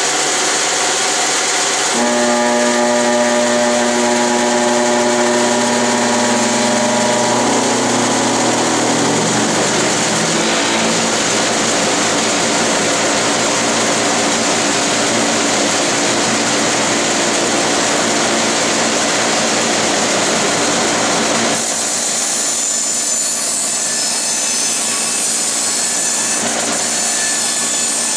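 Hitachi CB75F resaw bandsaw, driven by a new motor on a frequency drive, running steadily, joined about two seconds in by a dust collector starting up and adding its hum. The mix of sound changes abruptly near the end.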